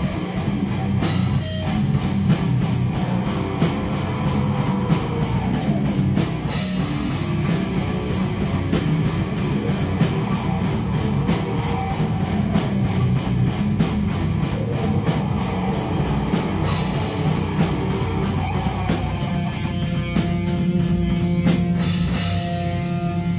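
Live rock music with a drum kit played at a fast, steady beat, cymbals ringing over the drums.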